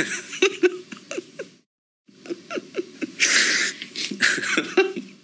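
A man laughing hard, in two fits of short breathy laughs with a brief pause between them about two seconds in.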